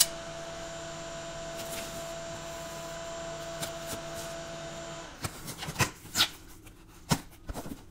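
A steady background hum with a few faint scrapes, which stops about five seconds in. Then a knife slices through the packing tape on a cardboard box: several short, sharp rasping strokes and cardboard scrapes, the loudest about six seconds in.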